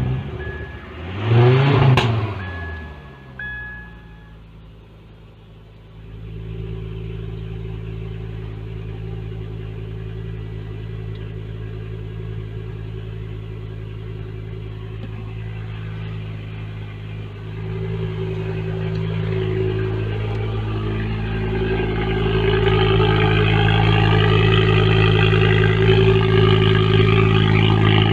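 Ford Focus ST's turbocharged 2.5-litre five-cylinder engine starting from cold: it cranks and catches, flares up in revs about two seconds in, drops back, then settles into a steady idle that grows louder past the middle.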